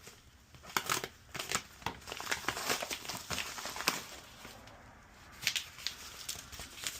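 Packaging being torn open and handled: rustling, crinkling and tearing in irregular bursts, busiest in the first half and again about five and a half seconds in.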